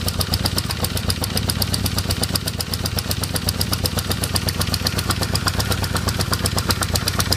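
1978 Honda CB550K's air-cooled inline-four engine idling steadily with a rapid, even ticking over the engine note. The owner cannot tell the tick's cause or where it comes from, and suspects the valves or the exhaust.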